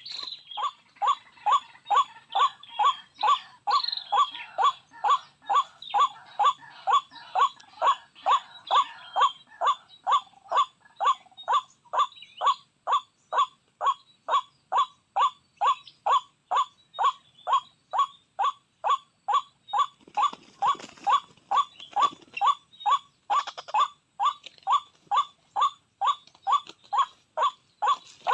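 White-breasted waterhen (ruak-ruak) lure call, a short clucking note repeated with machine-like regularity about twice a second. It is typical of a looped call played to draw waterhens to a snare. In the first few seconds other, irregular calls sound over it, and a brief rustle comes near the end.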